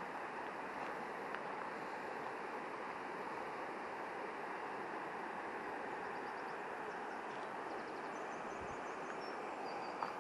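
Steady rush of flowing river water, with a small bird chirping a quick run of high notes near the end.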